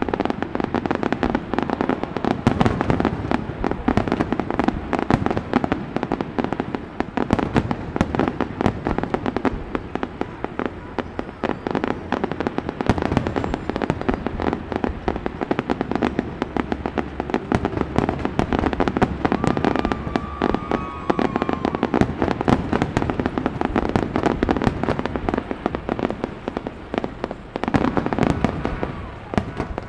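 Aerial fireworks display: a continuous, irregular barrage of bangs and crackling shell bursts. A short wavering whistle sounds about two-thirds of the way through.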